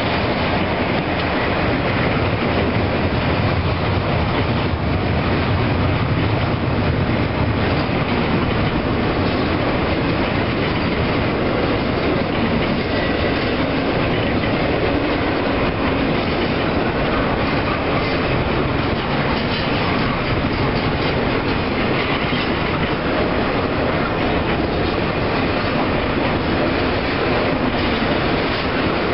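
Freight train of double-stack container well cars rolling past close by: a steady, loud noise of steel wheels on the rails.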